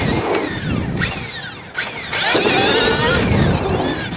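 Dirt bike engine under a rider on a motocross track. The revs fall as the throttle is rolled off, then come back on hard about halfway through, and fall away again near the end.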